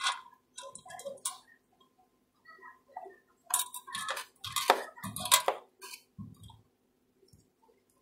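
Small clicks and taps of laptop parts being handled and seated in an open laptop chassis. The loudest knocks are a few sharp ticks close together in the middle, and it is quieter near the end.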